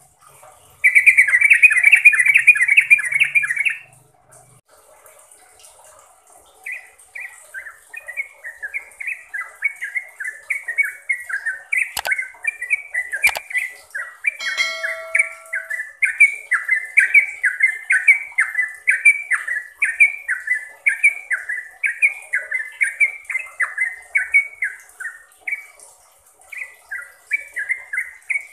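Yellow-vented bulbul (trucukan) singing: a loud, dense chattering burst about a second in, then, after a short pause, a long run of quick bubbling notes at about three a second, broken briefly near the end. Two sharp clicks sound midway.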